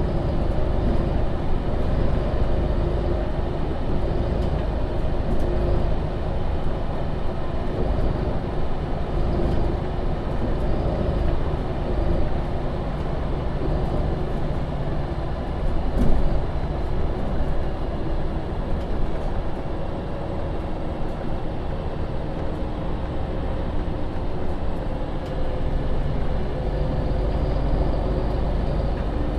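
Engine and drivetrain of a MAN Lion's City Euro 6 city bus (NL 283) running steadily while the bus drives, heard from on board. The engine note drifts slowly up and down, and there is a single sharp knock about halfway through.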